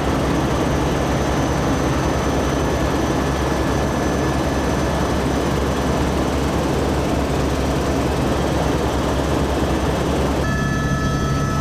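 Helicopter cabin noise: a steady low drone of the engine and rotor under an even rush of air, holding the same level throughout.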